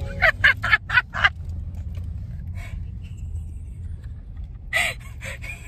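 A woman laughing in a quick string of about five bursts, then once more briefly near the end, over the steady low rumble inside a car's cabin.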